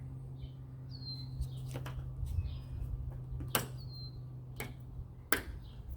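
Plastic roof gutter trim on a car roof snapping into its clips as it is pressed down: four sharp clicks, the second and last loudest. A bird chirps twice in the background over a steady low hum.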